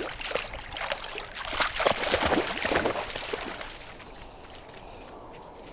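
English springer spaniel puppy splashing and wading through shallow still water, the splashing busy at first and dying down after about three and a half seconds.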